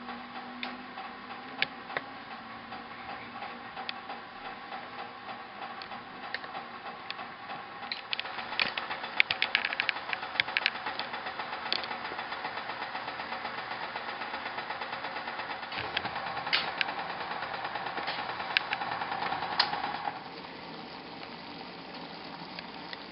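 Water heating to the boil in a metal pot on a gas burner: a steady hiss with dense crackling and popping of bubbles, which thickens about a third of the way in and eases off near the end.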